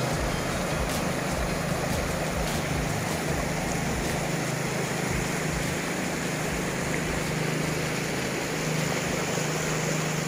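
Boat's outboard motor running steadily with a low hum, with wind rumbling on the microphone and rushing water.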